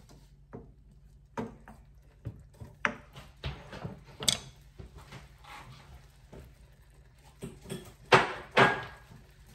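Kitchen clatter: a series of irregular knocks and clinks of utensils and cookware, with two loud knocks about eight seconds in.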